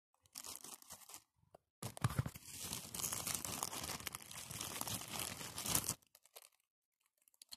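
Clear plastic parts bags crinkling and rustling as they are handled and rummaged out of a box: a brief bout of crinkling, then about four seconds of continuous crackling that stops a little before the end.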